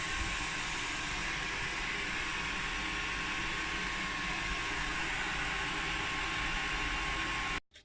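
A blacksmith's forge running: a steady rushing noise with a faint steady high whine, cutting off abruptly near the end.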